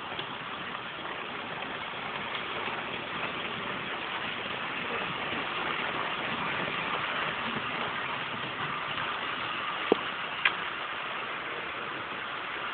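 00 gauge model train running along the track, a steady hum of its small electric motor and wheels on the rails. Two sharp clicks come about ten seconds in.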